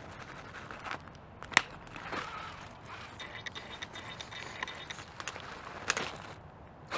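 Homemade 1/10-scale RC rock crawler with a Fusion Pro brushless motor crawling over a rock: sharp knocks as its wheels and chassis strike the stone, the loudest about a second and a half in and another about six seconds in as it lurches. Midway, the motor and gear transmission whine faintly for about a second and a half.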